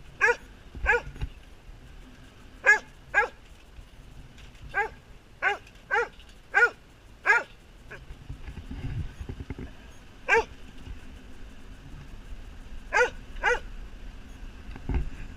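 A dog barking: about a dozen short, sharp barks, some single and some in quick pairs, with pauses between them.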